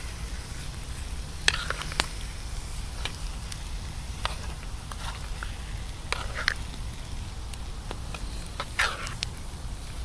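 Wood campfire crackling with scattered sharp pops, and a pan of beans simmering on the hot embers beside it.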